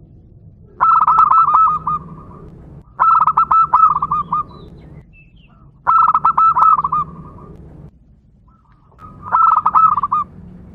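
Zebra dove (local perkutut) singing: four short phrases about every three seconds, each a quick run of rolling cooing notes. This is the lure song used to set other perkutut singing.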